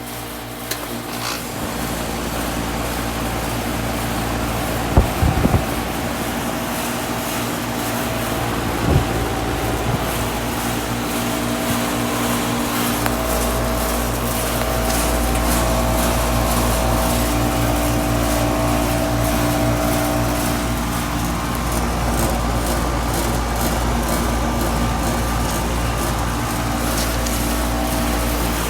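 2012 Goodman GSX13 3-ton air conditioner condensing unit starting up and running: a steady mechanical hum with several steady tones. There are a few knocks about 5 and 9 seconds in, and a deeper hum grows stronger about 13 seconds in.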